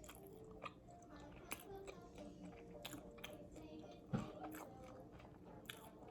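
Faint chewing and biting into extra-crispy fried chicken wings, with a few short crunches about a second apart.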